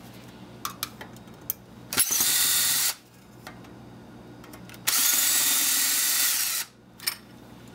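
Power drill with a screwdriver bit running twice, briefly and then for nearly two seconds, backing screws out of a faucet's metal base plate.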